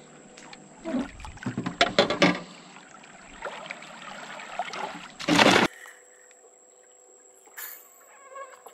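Small tarpon thrashing and splashing at the side of the boat as it is landed by hand, with a cluster of sharp splashes about two seconds in and a loud burst of splashing just after five seconds that cuts off suddenly.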